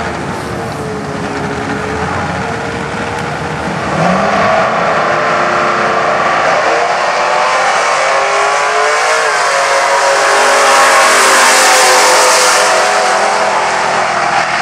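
Two drag race cars' engines at the start of a run, getting louder about four seconds in as they launch, then accelerating hard down the strip with the engine pitch climbing repeatedly through the gears.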